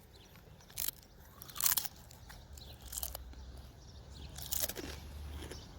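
A few short, sharp crunching sounds, about four of them spaced a second or so apart, over a quiet background.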